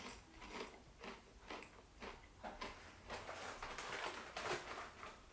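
A person chewing Walkers potato crisps, a steady run of soft crunches a little more than two a second.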